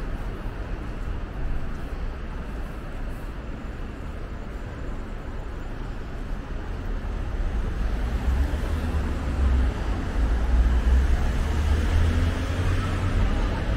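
Steady city traffic noise from the street below, with a low rumble that grows louder about halfway through.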